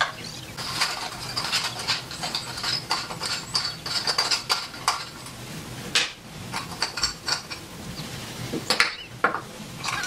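Metal parts clinking and clicking together as they are handled, a threaded metal tube, a metal dish and a nut from a lamp holder, with many short irregular knocks.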